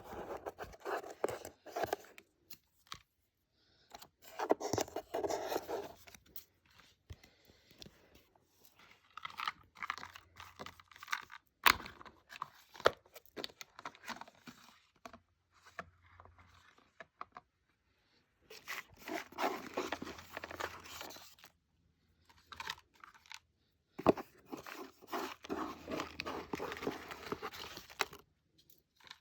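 Packaging being torn open and handled: irregular spells of tearing and crinkling, one to three seconds each, mixed with scattered clicks and taps.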